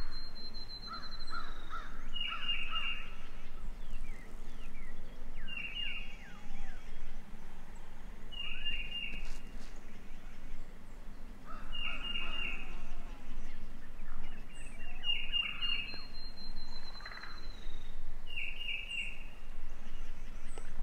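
Spring birdsong: a songbird repeats a quick, high phrase of three or four notes about every three seconds, with a longer trilled note twice and other short bird calls between. A wild turkey gobbles faintly at times.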